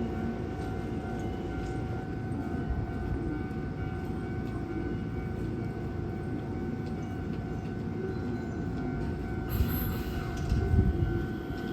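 Hankyu electric train running through the station: a steady rumble on the rails with a steady tone above it. About ten seconds in there is a short hiss, followed by a louder heavy surge.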